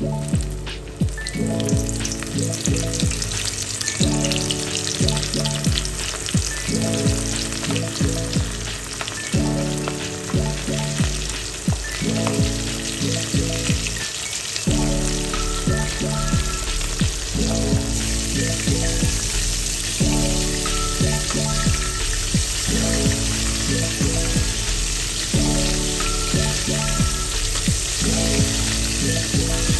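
Flour-coated chicken pieces deep-frying in hot oil, a steady crackling sizzle, with background music with a steady beat throughout.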